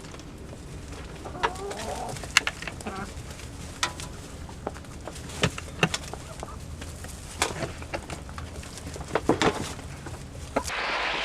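Chickens clucking softly, with a dozen or so sharp taps or clicks scattered through.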